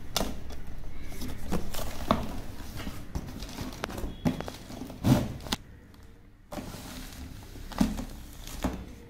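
Cardboard packaging being handled: a printed box slid out of a corrugated shipping carton, with rustling and scraping and a few knocks, the loudest about five seconds in.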